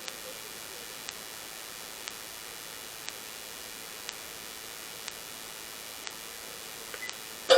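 Steady hiss with a faint tick about once a second. Right at the very end a sudden loud hit starts, with a ringing tone.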